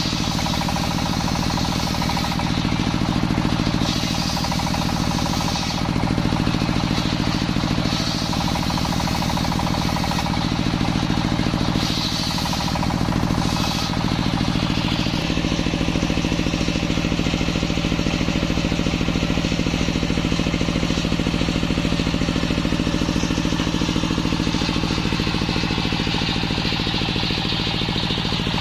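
Engine-driven sawmill circular saw, its large belt-driven blade ripping waru (sea hibiscus) boards. The cutting noise swells and fades over several passes on top of the steady running of the engine. About halfway through, the cutting stops and the engine and blade run on without load.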